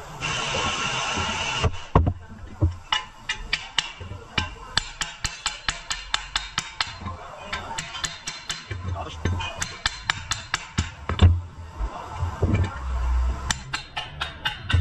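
A short steady hiss, then a long run of sharp hammer blows on steel, often three or four a second, as a ball-peen hammer works on a car's steering knuckle to knock the old front wheel bearing out.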